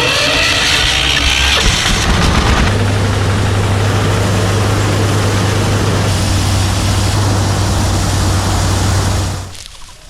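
A loud engine running. It settles about two and a half seconds in into a steady low hum, which drops away abruptly about half a second before the end.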